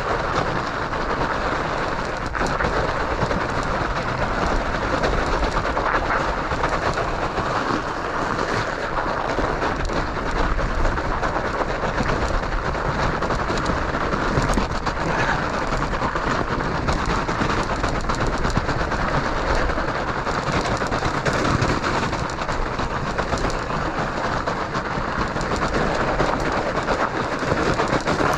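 Steady rushing and rattling noise of a fat bike riding fast downhill on studded tires over snow and ice, with many small clicks and knocks throughout.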